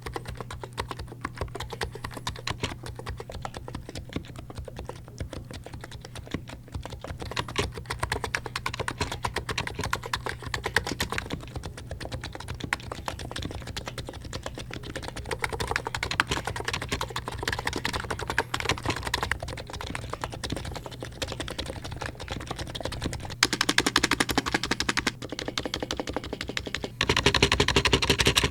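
Continuous fast typing on a Hansung GK868B electro-capacitive keyboard, fully lubed: switches with a Krytox 105/205 mix, springs with Krytox 105 and stabilizers with Permatex. It gets faster and louder in two runs near the end.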